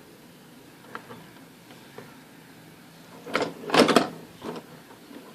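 Hard clattering knocks of a motherboard being handled and set down on a workbench, a few light clicks followed by a loud cluster of knocks about three to four seconds in.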